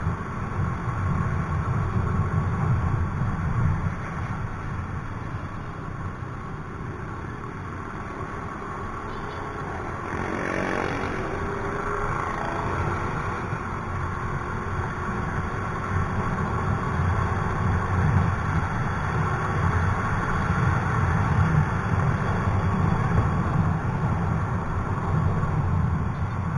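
Wind buffeting the microphone of a camera on a riding motor scooter, over steady engine and road noise in traffic. About ten seconds in, an engine note rises and falls for a couple of seconds.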